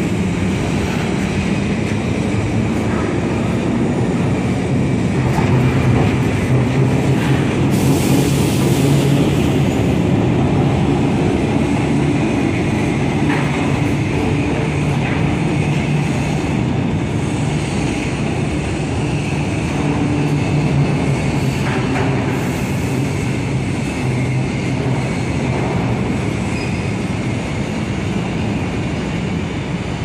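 Steady industrial machinery noise from an overhead slab-handling crane and mill plant, a continuous low hum over a broad rumble, with a hiss lasting about two seconds some eight seconds in.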